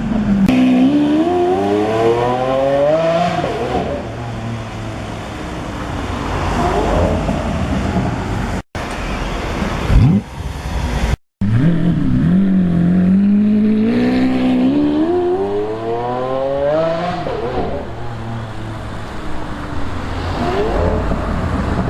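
Lamborghini Aventador's 6.5-litre V12 accelerating hard, its pitch climbing steadily through the revs and then fading as the car pulls away. A quick sharp rev comes about ten seconds in. A second hard acceleration follows, climbing and fading the same way.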